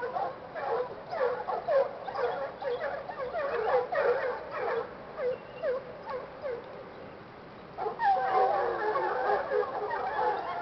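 A pack of hunting hounds baying and yelping, many voices overlapping: the pack giving tongue during a hunt. The cry thins out for a moment past the middle, then swells again, louder, near the end.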